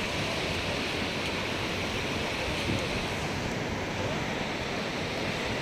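Sea surf washing onto a beach: a steady rushing of waves.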